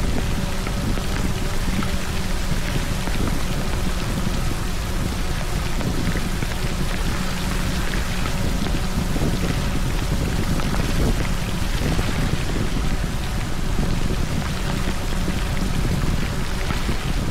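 Steady rain spattering on and around an Insta360 X4 camera, a dense, even patter of drops.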